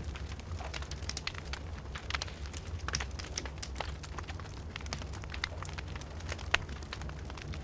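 Wood fire in a fireplace crackling, with frequent sharp pops and snaps over a steady low rumble; one louder pop about six and a half seconds in.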